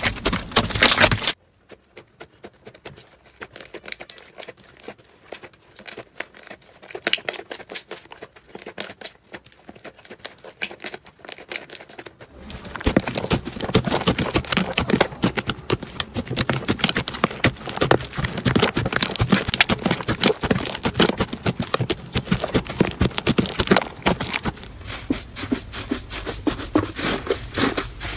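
Slime being squeezed, poked and stretched by hand, giving rapid sticky clicks and crackling pops. The clicking is sparse and quiet for the first ten seconds or so, then turns loud and dense.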